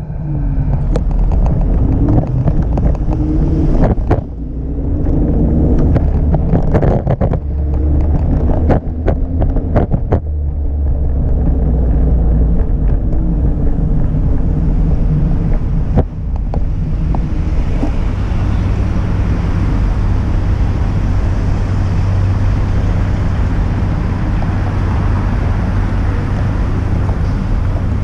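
Riding noise on a Segway Ninebot Max G30LP electric scooter: a low rumble of wheels on pavement, broken by many short knocks and rattles from bumps. From about two-thirds of the way in, a steady rush of wind on the microphone takes over as the scooter picks up speed.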